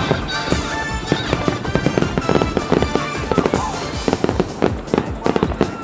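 Aerial firework shells bursting in a dense barrage, many bangs and crackles in quick succession, with music playing underneath.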